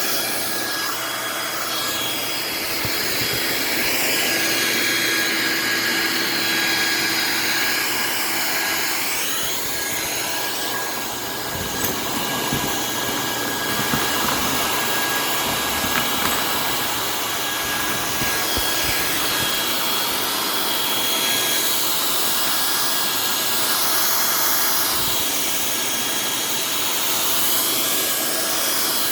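Old vacuum cleaner motor, cut down and used as a hand blower, running flat out: a steady whine over a rush of air, its pitch wavering a little now and then.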